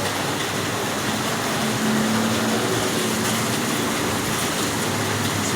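Heavy rain hissing steadily, with a motor vehicle's engine humming low underneath, a little louder from about two seconds in.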